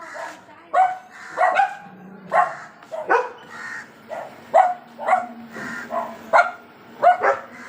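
Dogs barking repeatedly at a crow, a dozen or so sharp barks, often in quick pairs.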